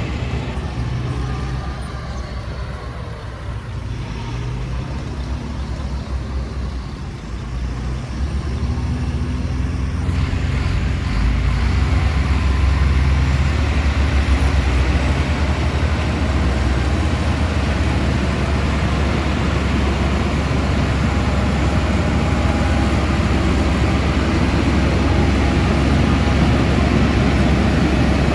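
Diesel engine of heavy construction machinery running, growing louder about eight to eleven seconds in and then holding steady.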